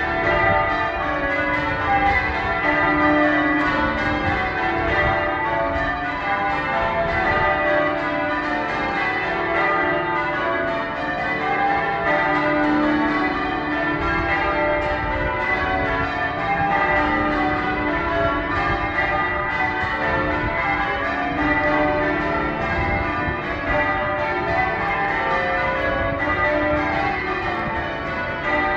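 Manchester Cathedral's church bells change ringing: a ring of tower bells struck one after another in rapid sequence, their tones overlapping without a break.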